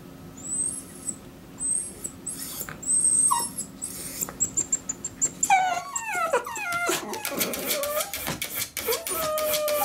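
Miniature dachshunds whining at a closed door, wanting to follow their owner out. High, thin squeaky whimpers come first, then falling whines about halfway through. In the last few seconds there is a rapid run of short sharp sounds and one long held whine.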